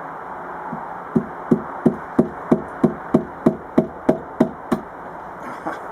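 A hammer whacking a spacer held against a washing machine's heater element: about a dozen even blows, about three a second, each with a short ring. The blows drive the element inward to release the fitting that holds it inside the drum housing.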